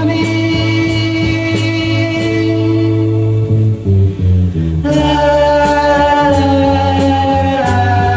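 Music from a romantic ballad between sung lines: sustained chords over a bass line, with light cymbal ticks. A fuller, brighter section comes in about five seconds in.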